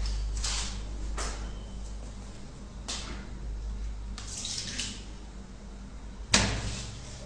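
Mini washing machine running: a steady low motor hum with water sloshing and swishing in the tub every second or so, and one sharp knock about six seconds in.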